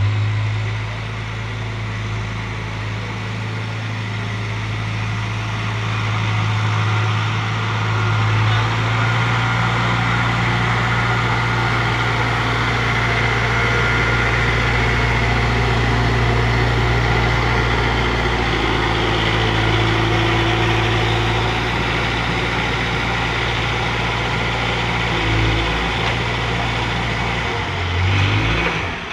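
Engine of a heavy earthmoving machine running steadily at a low, even pitch.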